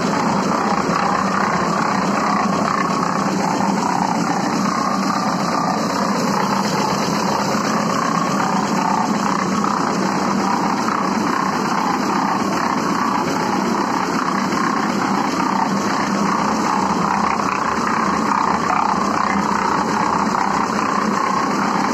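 Portable drum concrete mixer running steadily, its drive turning the drum while the blades churn a load of sand-cement mortar.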